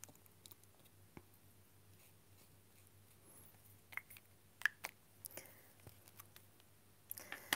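Quiet room with a few faint scattered clicks and taps of a marker pen being worked on paper and handled, the sharpest click about four and a half seconds in.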